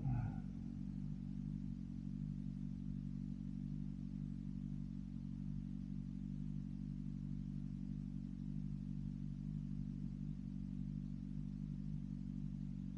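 BMW S1000RR's inline-four engine, fitted with an M4 aftermarket exhaust, idling steadily at one unchanging pitch, after a short sharp sound right at the start.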